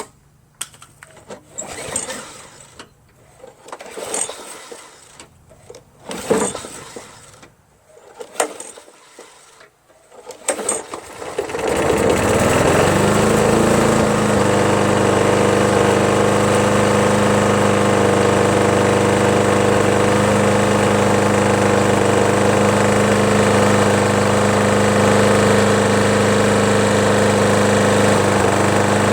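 Small lawn mower engine being started: several short start attempts, then it catches about eleven seconds in, revs up over a couple of seconds and settles into steady running.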